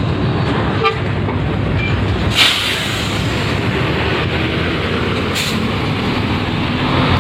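Large bus engines running with a steady low rumble as heavy vehicles pass, with two short hisses about three seconds apart.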